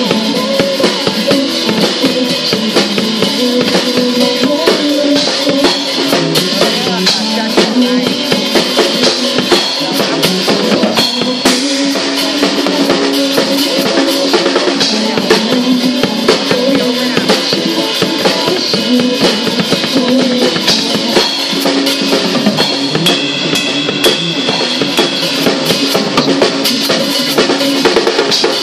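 Drum kit played along with a pop song's recorded track: a continuous beat of drum strikes over the music.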